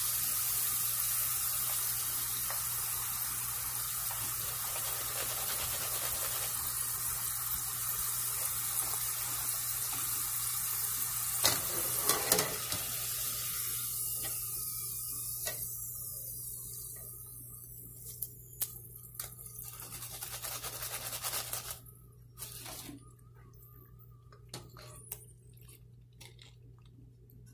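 Potato slices deep-frying in hot oil: a steady sizzle that dies away over the second half as the chips are lifted out. Scattered clicks and scrapes of the wire spider strainer against the pan, mostly after the sizzle fades.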